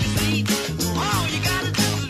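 Upbeat background music with a steady beat and a moving bass line.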